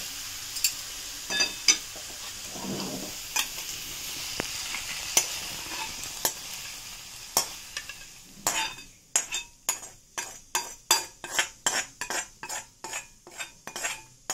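Tomatoes, dried red chillies and spices sizzling in oil in an iron kadai, with a few ladle clinks. About eight seconds in the sizzle falls away and a steel ladle scrapes the mixture out of the pan onto a steel plate in quick repeated strokes, about three a second.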